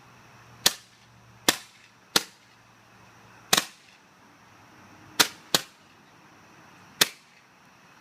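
Roman candles firing, each shot a sharp pop, about eight pops at uneven spacing, some coming in quick pairs.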